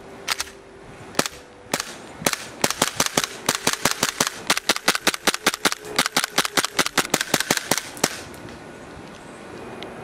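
ICS BLE XPD gas blowback airsoft pistol firing: a few single shots a second or so apart, then a rapid string of sharp cracks at about five a second for some five seconds, each with the clack of the metal slide cycling, and then it stops.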